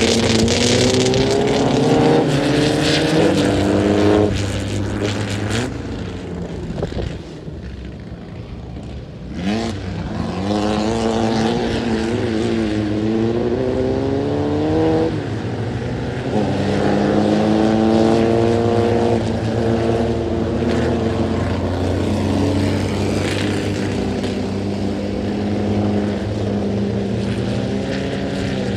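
Volkswagen engine of a tubular off-road racing buggy revving hard. Its pitch climbs, then drops off sharply about four seconds in and again about halfway through as the driver lifts or shifts, and holds fairly steady near the end.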